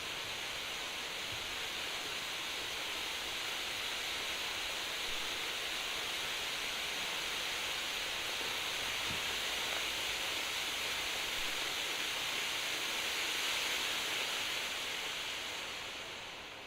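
Conic firework fountain burning with a steady hiss of spraying sparks, dying down near the end.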